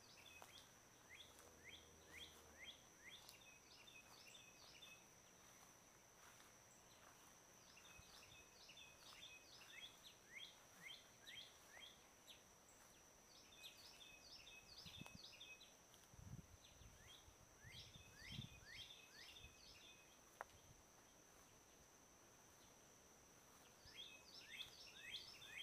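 Songbird singing faintly: phrases of quick, descending chirps repeated several times, with pauses of a few seconds between phrases.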